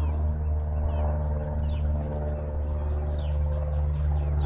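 A steady low mechanical hum, like a motor or engine running, under quick, short, falling chirps of small birds repeated throughout.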